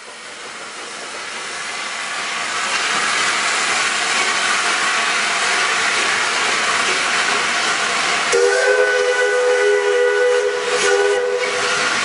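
Peppercorn A2 Pacific steam locomotive 60532 Blue Peter pulling away, steam hissing loudly from its open cylinder drain cocks. The hiss fades up over the first few seconds, and about eight seconds in the locomotive's whistle sounds a steady low note for about four seconds.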